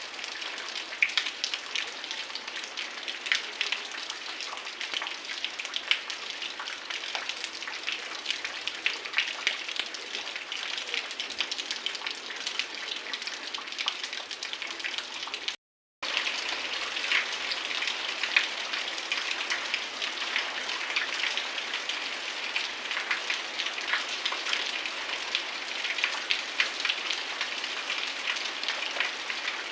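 Heavy rain falling steadily, with many close drops ticking sharply on surfaces over a dense hiss. The sound cuts out completely for a moment about halfway through, then the rain carries on as before.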